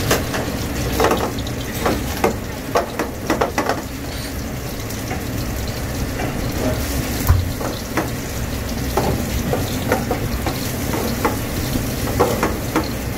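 Chunks of crab meat sizzling in a non-stick frying pan over a high gas flame, with a steady frying hiss. A spatula knocks and scrapes against the pan, in clusters early on and near the end, with one louder knock midway.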